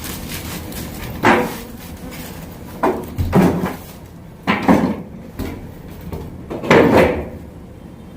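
A series of about six irregular knocks and bumps, some in quick pairs, over a steady low background.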